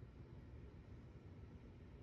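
Near silence: faint low background rumble and hiss.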